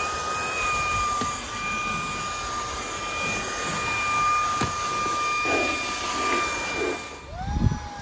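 VAKYOU VC001 cordless stick vacuum with a 400 W brushless motor running, a steady high whine over rushing air. Near the end the whine drops away and a lower tone slides down in pitch, with a thump.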